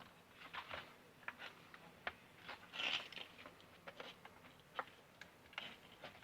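Scattered small clicks and scrapes of hands and tools on a drainage pump's parts as it is taken apart, with a louder scrape about three seconds in.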